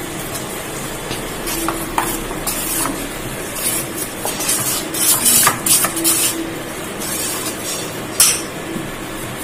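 Steel spoon stirring curd-and-semolina idli batter in a stainless steel bowl, scraping and clinking irregularly against the bowl as the batter is thinned with water. The clinks are busiest around the middle, with one sharper clink near the end.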